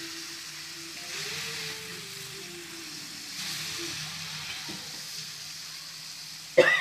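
Neiparai fish steaks frying in oil on a small stone dosa griddle, sizzling steadily and swelling twice as they are turned with a metal spatula. Near the end comes a short, loud squeak.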